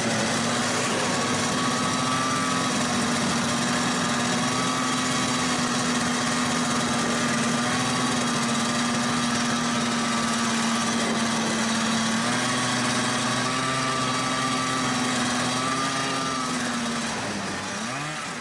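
Vintage two-stroke snowmobile engine running at a steady high pitch under way, with small rises and falls in revs. Near the end it drops in pitch and gets quieter as it slows down.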